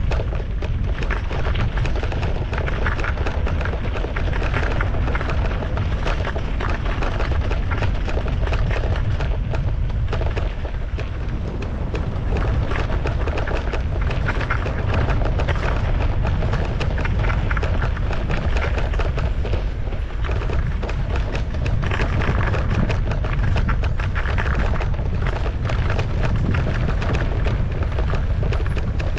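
Wind buffeting the microphone of a camera on a moving mountain bike, a steady heavy rumble, over a dense crackle of tyres on a rough dirt trail and the bike rattling.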